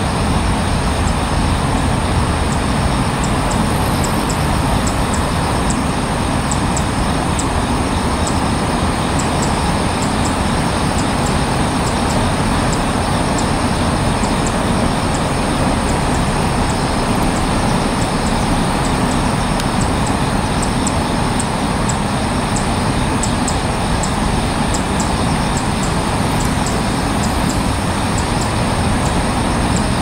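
Steady rushing background noise outdoors, with faint, quick, high ticks scattered through it.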